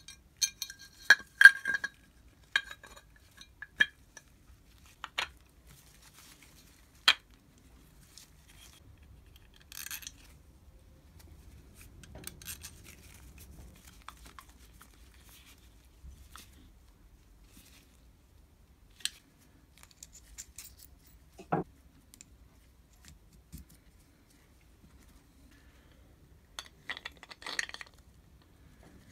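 Metal parts of a Wolf Cub electric drill's polished housing and handle clicking and clinking against each other as they are handled and fitted together, in scattered sharp taps with a quick cluster at the start and another near the end, and faint rustling in between.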